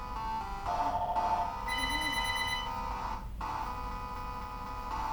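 Electronic tones in a repeating, ringtone-like pattern. A few quick stepped notes come first, then held warbling tones, with a brief break about three seconds in before the pattern starts again.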